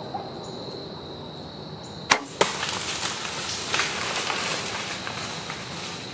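A bow shot at a deer: two sharp cracks about a third of a second apart, the bowstring's release and the arrow's hit, about two seconds in. A steady high insect drone lies under it, and a rustling, crackling noise follows the shot.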